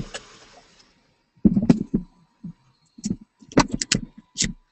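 Irregular knocks and rustles of a paper sheet being handled and shifted on a desk, with one bump about one and a half seconds in and a cluster of them near the end.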